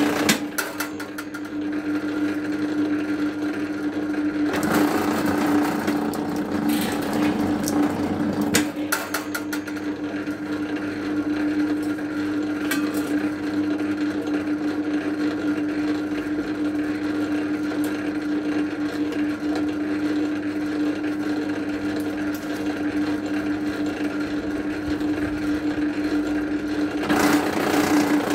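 Electric cable-stripping machine running with a steady motor hum as insulated copper cable is fed through its rollers and blades. Louder, noisier stretches come about five and eight seconds in, and a few clicks near thirteen seconds.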